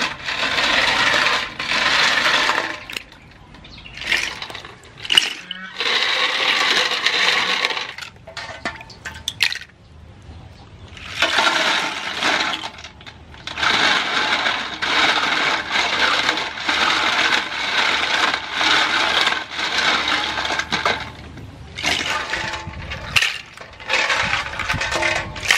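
Sea snail shells being rubbed and swished by hand in a steel basin of water, clattering against each other and the basin while the water sloshes, in several long stretches with pauses and sharp clicks between them.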